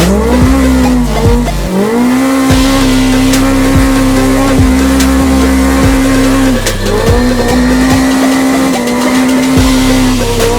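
Polaris Pro R race engine revving up in a few quick rising pulls, then held at a steady high RPM for several seconds, dropping briefly twice, about two-thirds through and near the end. Background music with a steady beat runs underneath.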